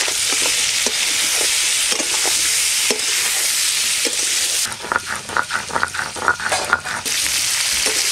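Food sizzling in hot oil in a kadai while a spatula scrapes and stirs it. About five seconds in, the sizzle drops back for a couple of seconds and quick scraping strokes, about five a second, come to the fore before the sizzle returns.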